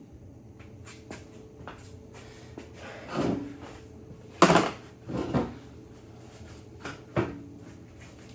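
A series of light clicks and knocks, with a few louder clunks around the middle, like hard objects being handled and set down on a surface.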